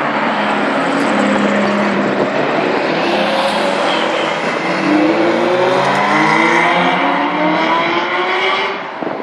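Ferrari V8 sports cars pulling away one after another. The last, a red Ferrari 348, accelerates hard, its engine note climbing steadily until it fades just before the end.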